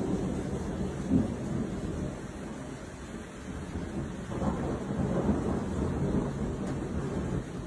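Rolling thunder rumbling low, with a louder peak about a second in and a swell again from about four to six seconds in.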